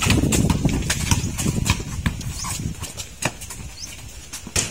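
Basketball bouncing on a concrete court as a player dribbles: a run of uneven thuds and sharp knocks, louder in the first half.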